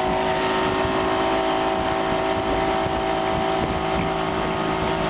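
Outboard motor running steadily at speed on a 1963 MFG runabout, its tone holding level, over the rush of wind and water from the hull and the churning wake.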